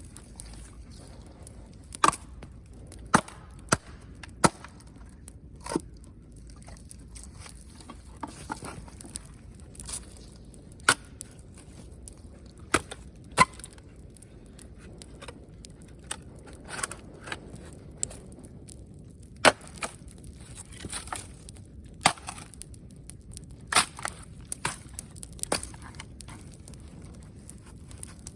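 Wood campfire crackling: sharp pops and snaps at irregular intervals over a steady low hiss of the burning fire.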